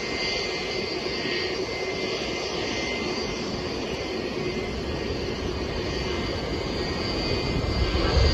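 Four-engined Boeing 747 freighter taxiing: steady jet engine noise with a high turbine whine. A louder low rumble comes near the end.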